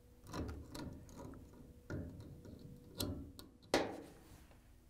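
Needle-nose pliers clicking and scraping against a washer's inlet valve fitting as a new mesh inlet screen is pushed into its seat: a handful of light clicks, the sharpest a little under four seconds in.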